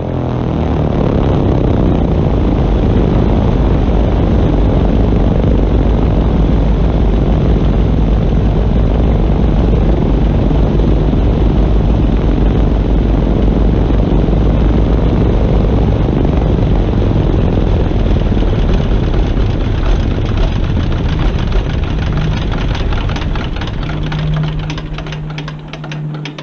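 Twin Pratt & Whitney R-985 Wasp Junior radial engines of a Lockheed Electra 10A running steadily with propellers turning, a loud, deep rumble. Over the last few seconds the sound eases off and gets quieter as the engines slow.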